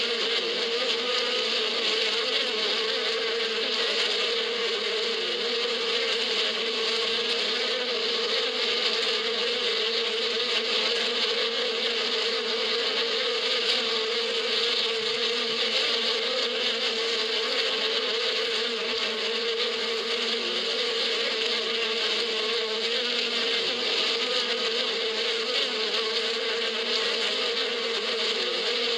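Many honeybees in flight around their hive, a steady, unbroken buzzing hum.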